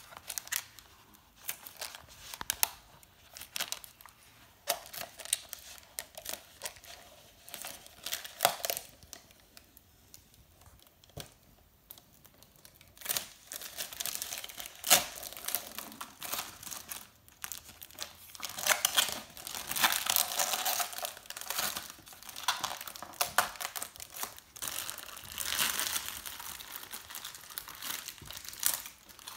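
Thin protective plastic film being peeled off a clear plastic face shield and handled, crinkling and crackling in irregular bursts, with a quieter lull about a third of the way in.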